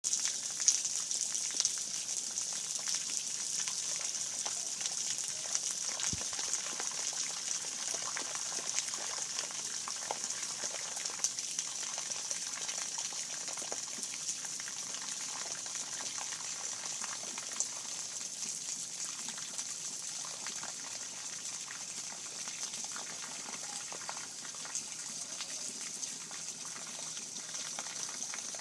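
Steady rain falling: an even hiss dotted with the ticks of single drops.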